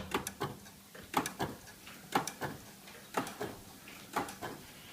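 Relays of a GPO electric clock system clicking about once a second as the seconds pulses drive them. Each pulse is a sharp click followed by a fainter one just after.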